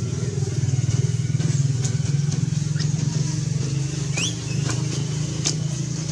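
An engine running steadily with a low, rapidly pulsing hum. A few brief high squeaks come over it, one about four seconds in rising in pitch.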